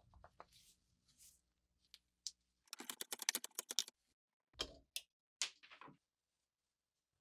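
Rapid run of small metal-and-wood clicks for about a second, then a knock and a short scrape, as a rusty hay hook's rotted wooden handle is worked loose in a bench vise.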